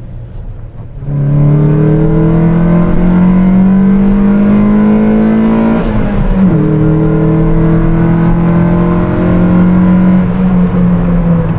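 1997 VW Golf MK3 GTI's 2.0-litre sixteen-valve four-cylinder engine, with an aftermarket exhaust, heard from inside the cabin. From about a second in it climbs steadily in pitch under acceleration; about six seconds in a gear change drops the pitch sharply, then it pulls up again and eases slightly near the end.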